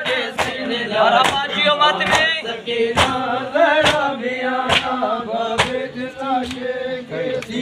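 A crowd of men chanting a Sindhi noha in unison, with sharp chest-beating slaps (matam) landing together about once a second.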